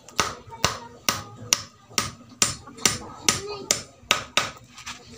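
Hammer driving a nail into an old wooden plank: a steady run of sharp blows, about two a second.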